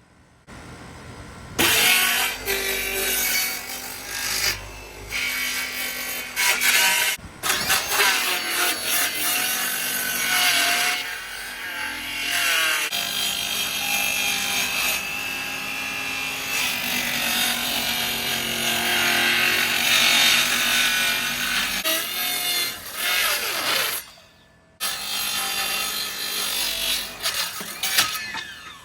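Cordless circular saw cutting plywood, the motor's pitch shifting as the blade loads up in the cut. It stops a few times for short pauses, the longest near the end.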